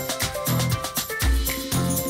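Background music with a steady beat of bass notes and percussion.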